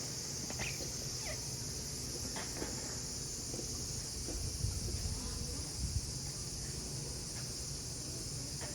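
Cicadas calling in a continuous chorus, a steady high-pitched drone, over a low rumble and faint distant voices.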